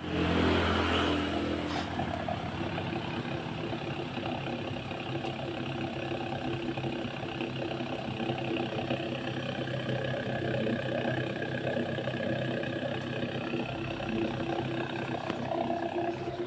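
Vehicle engine idling through an aftermarket exhaust (knalpot) with a deep snoring note. It is a little louder in the first second or two, then runs steadily.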